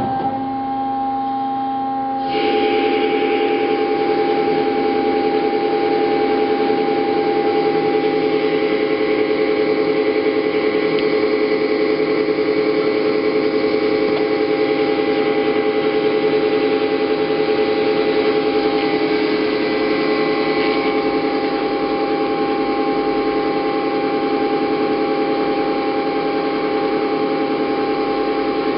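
Hyd-Mech V-18 Series 2 vertical bandsaw with a 7.5 horsepower motor, running steadily with a machine hum and several held tones. About two seconds in, the sound steps up to a louder, fuller running noise and stays steady.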